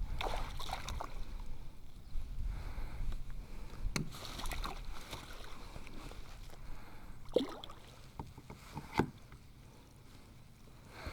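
Kayak sounds on the water: scattered short knocks and clicks against the hull with some splashy water noise, over a low wind rumble in the first two seconds.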